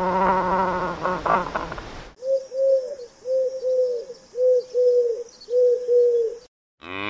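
A chinstrap penguin calls with a wavering, drawn-out cry for the first two seconds. Then a dove coos: eight soft coos in four evenly spaced pairs, cut off suddenly. A cow starts to moo just before the end.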